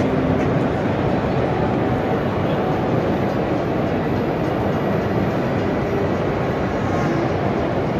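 Steady background din of a crowded motor-show exhibition hall, a dense even hubbub with no single event standing out.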